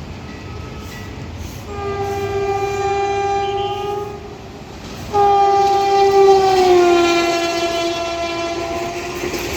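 WAP-4 electric locomotive horn sounding long blasts: a faint one, then a loud blast of about two seconds, and a longer loud blast about five seconds in that drops in pitch partway through as the speeding locomotive passes. A steady rumble of the approaching train runs underneath.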